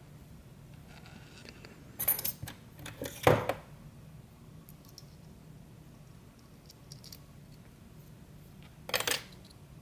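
Small metal lock parts clinking: discs and spacers from a disassembled Abloy DiskLock being handled and set down. There are two short runs of clinks about two and three seconds in, and a single clink near the end.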